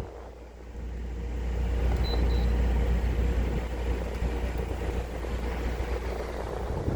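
Air conditioner running with a steady low hum and a rushing of air. Two short, faint high beeps come about two seconds in.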